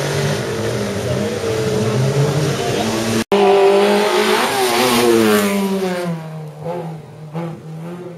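Slalom race car engine. At first it runs and revs with a steady, wavering note. After a cut about three seconds in it is loud and hard on the throttle, its pitch dropping as the car pulls away up the course, then it turns uneven and fainter with repeated dips as the throttle is lifted and reapplied.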